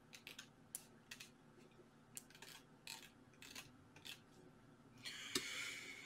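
Near silence broken by faint, scattered short clicks, about a dozen, with a soft hiss in the last second.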